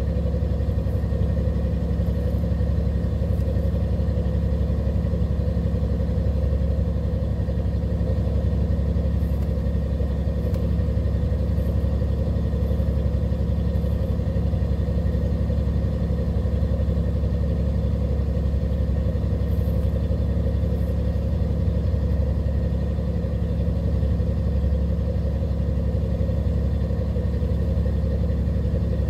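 Steady low drone of a fishing boat's engine running, with a constant hum and no change in pitch.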